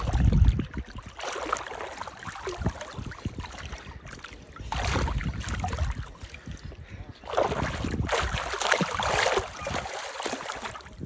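River water splashing and sloshing as two men thrash and shift in waist-deep water, one being hauled onto the other's back, in several uneven bouts.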